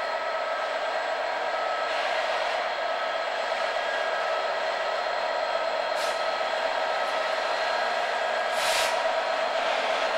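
Class 66 diesel-electric locomotive, its EMD two-stroke V12 engine running with a steady drone that grows slightly louder as it draws a freight train slowly past. Two brief hisses break in, about six and nine seconds in.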